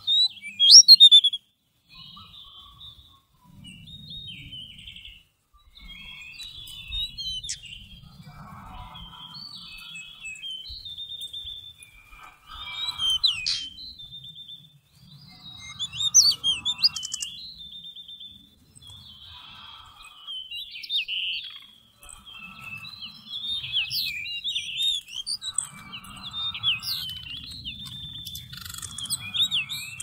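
Magpie-robins singing and calling: bouts of varied whistled phrases and sharp chirps every couple of seconds, loudest about a second in, over an intermittent low rumble.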